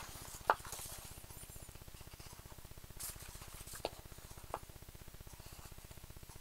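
Faint handling noise from a paper poster: four short, soft clicks and rustles, about half a second, three, four and four and a half seconds in, over a low steady hum.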